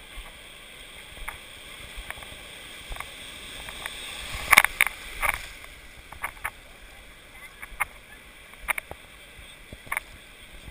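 Surf rushing and sloshing right at the waterline, with short sharp splashes of water against the camera; the loudest splashes come about halfway through.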